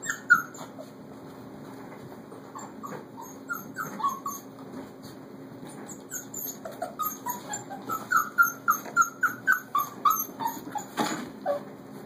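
Four-week-old puppies whimpering and yipping in short, high-pitched squeaks as they play, with a quick run of them from about eight seconds in.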